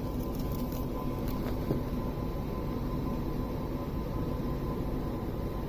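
Steady rumbling background noise with a thin steady tone above it and a few faint clicks.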